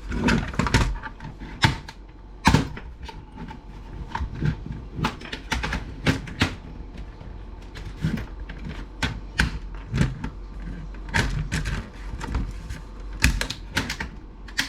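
Irregular clicks, taps and knocks of a laptop docking station's hard plastic casing being handled and worked apart by hand, a few louder snaps among lighter ticks.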